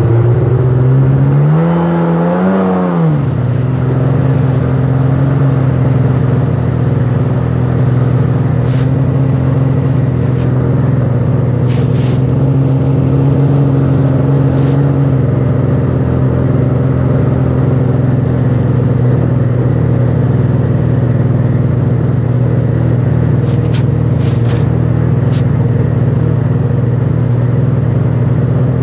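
Sea-Doo personal watercraft engine running steadily, its pitch rising and falling back about two seconds in as it revs up and settles. A few short crackles come through now and then.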